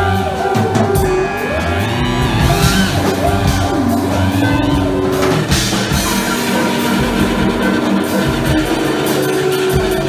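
Loud, dense live experimental improvisation by a quartet of cello, percussion, guitar and electronics. Layered sustained drones are joined by sliding, swooping pitches over a steady low rumble.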